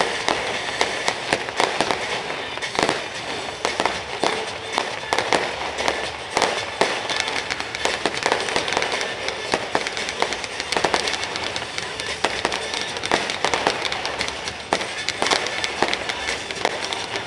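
Fireworks display: a rapid, dense run of sharp bangs, several a second and overlapping, over a continuous crackle and rumble.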